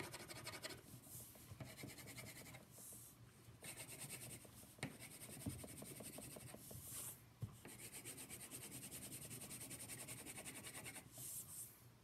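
Wax crayon scribbling quickly back and forth on paper against a tabletop, faint, in four spells of rapid strokes with short pauses between.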